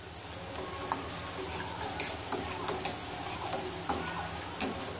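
Steel spoon stirring thick semolina-and-milk porridge in a metal saucepan, scraping and clinking irregularly against the pan's sides and bottom.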